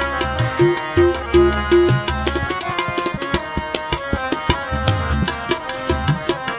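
Tabla playing a quick, even rhythm over sustained instrumental chords in an instrumental interlude of Sikh shabad kirtan; the bass drum's pitch slides upward a few times, near the middle and the end.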